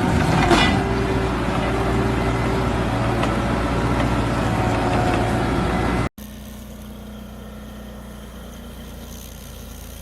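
Heavy machinery engine running loud with mechanical noise, then an abrupt cut about six seconds in to a quieter, steady engine hum.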